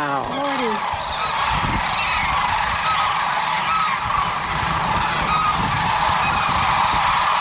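Large flock of sandhill cranes calling together: a dense, steady chorus of many overlapping calls.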